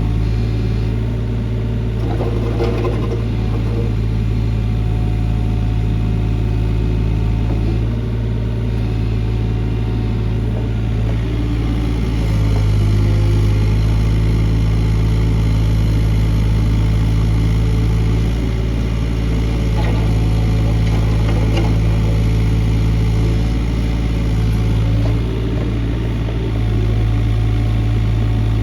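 Kobelco SK28SR mini excavator's diesel engine running, its sound growing louder and easing back several times as the load changes, with a few light clanks.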